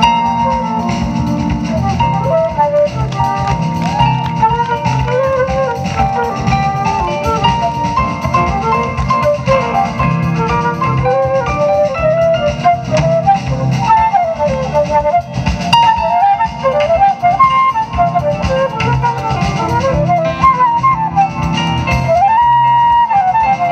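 Live jazz ensemble playing an instrumental passage: a fast, winding lead melody over electric bass, drum kit and keyboard, with violin, flute and saxophone in the band.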